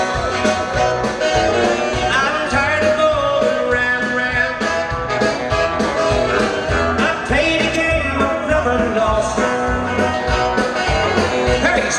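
Live country band playing through an outdoor PA: electric guitars, bass and drums with a steady beat.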